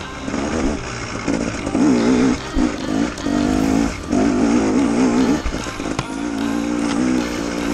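KTM 250 EXC enduro motorcycle engine under hard riding, its pitch rising and falling repeatedly as the throttle is worked on and off, with a few sharp knocks from the bike over rough ground.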